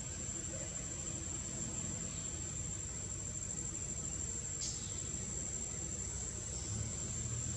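Insects in the trees trilling as one steady high-pitched tone, over a low rumble, with one short click about two-thirds of the way through.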